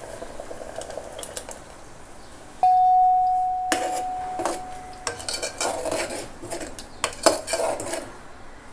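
A spoon strikes a pressure cooker pot about two and a half seconds in, and the pot rings with one clear tone that fades over a couple of seconds. Then comes a run of irregular clinks and scrapes of the spoon against the pot as the curry is stirred.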